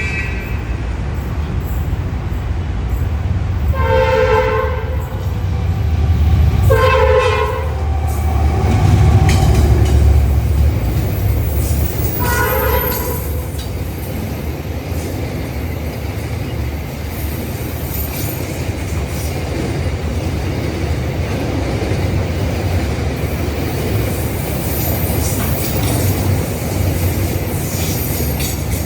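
Egyptian railway train running on the rails with a steady low rumble, loudest about nine to ten seconds in. Its horn sounds three times: two blasts about three seconds apart, then a third about five seconds later.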